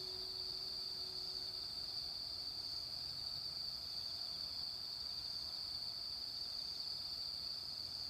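Steady, high-pitched chirring of insects, with the hum of a temple bell from the 18:00 disaster-prevention radio chime dying away in the first two or three seconds, between strikes.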